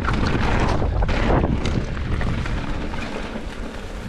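Wind rushing over a helmet or chest camera microphone on a moving mountain bike, with a low rumble and scattered clicks and rattles from the tyres and bike on a rough dirt trail; it eases off gradually toward the end.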